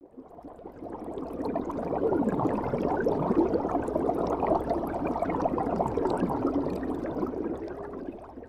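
Bubbling underwater sound effect that swells in over the first couple of seconds, holds steady, and fades away near the end.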